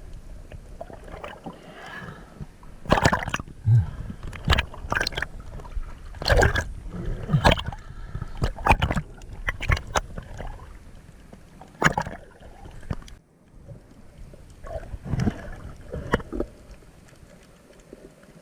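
Sea water sloshing and gurgling close to the microphone, with irregular loud splashes.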